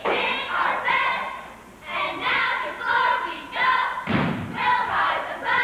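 Cheerleaders shouting a cheer together in short, clipped calls. A heavy thud comes about four seconds in, as the squad drops to the floor.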